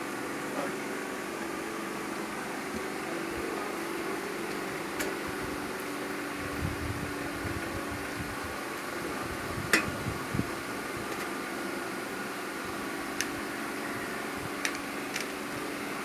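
Steady fan hum with a few sharp metallic clicks and soft knocks of screws and parts being handled while fitting them into a computer case; the loudest click comes about ten seconds in.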